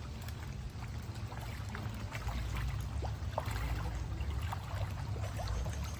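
Water dripping and trickling in scattered small drops, over a steady low rumble of wind on the microphone.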